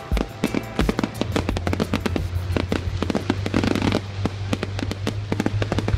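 A fireworks display going off in a rapid barrage of crackles and bangs, many per second, with music playing underneath.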